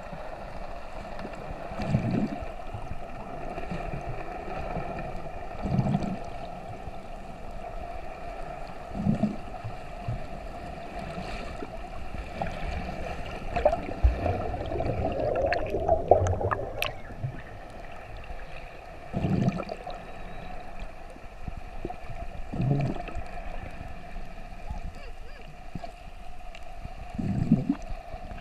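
Underwater sound with a steady hum, which matches a boat engine carried through the water, and low whooshing swells every few seconds. About halfway through, a snorkeller's fins kicking right beside the camera churn up a burst of bubbling and splashing.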